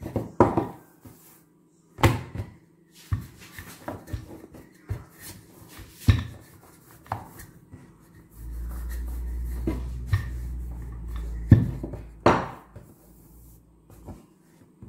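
Kitchen handling sounds while working pie dough: scattered knocks, taps and clatter of utensils on a work surface, with a steady low hum for about six seconds in the second half.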